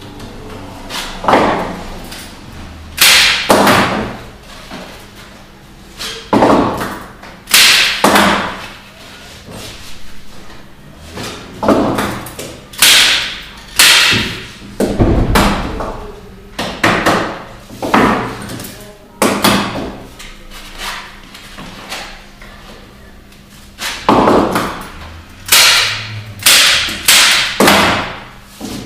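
Staple gun firing staples through canvas into a wooden stretcher frame: single sharp clacks, some in quick pairs, spaced irregularly a second or more apart, with a quieter spell a little past the middle.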